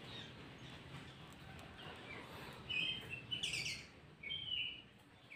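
Faint bird chirps: three short bursts of calls in the second half, over a low hiss.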